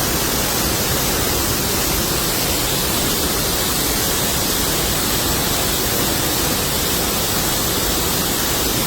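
Waterfall rushing: a loud, steady roar of falling water with no change in level.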